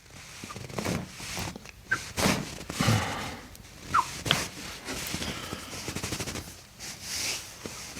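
Handling sounds of an ankle being pulled and adjusted: rustling and scattered knocks, with a few short high squeaks about two and four seconds in.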